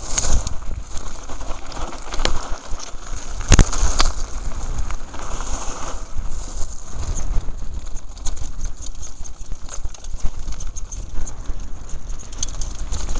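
Mountain bike clattering down a loose gravel trail: tyres crunching over stones and the bike rattling constantly, with wind rumbling on the microphone. A sharp knock about three and a half seconds in.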